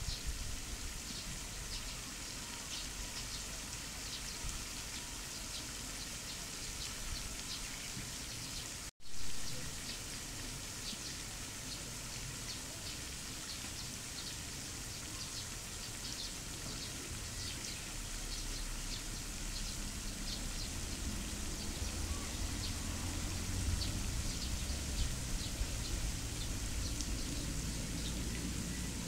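Steady outdoor noise: an even hiss with many faint, scattered ticks. There is a brief dropout about nine seconds in, and a low rumble joins in the second half.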